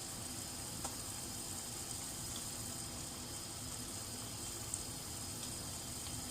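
Steady hiss of food cooking on a stove, with a couple of small clicks, about a second in and again near the end.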